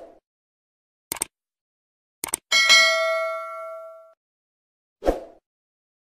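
Subscribe-button animation sound effect: a mouse click, then a quick double click, then a bright bell ding that rings out and fades over about a second and a half. A short transition sound comes at the start and another about five seconds in.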